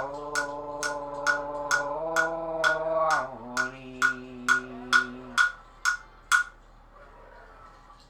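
A wordless held sung note that steps up slightly about two seconds in and drops lower about three seconds in, over a steady beat of sharp percussive clicks about twice a second. The singing stops about five seconds in, and the beat about a second later.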